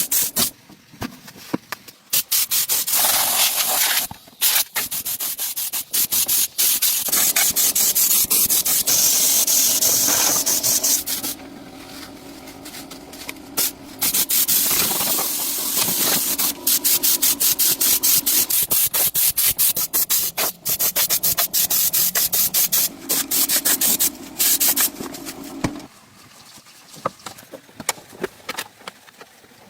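Abrasive sanding or rubbing on an engine part, fast scratchy strokes in long spells that stop and start again several times.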